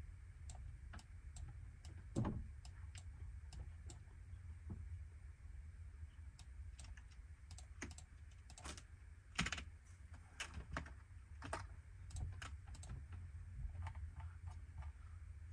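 Faint clicks of typing on a computer keyboard over a low steady hum. In the first few seconds there is an even run of ticks, about two or three a second; after that the taps come irregularly.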